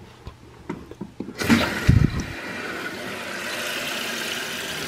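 Light clicks as the water supply is turned back on. About a second and a half in, a steady hiss starts as water rushes through the newly installed Fluidmaster 400 fill valve, refilling the toilet bowl and tank, with a low thump just after it starts.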